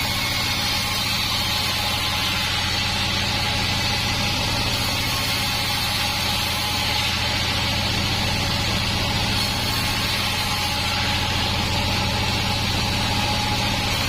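Band sawmill running steadily: a low, even machine drone under a constant high hiss.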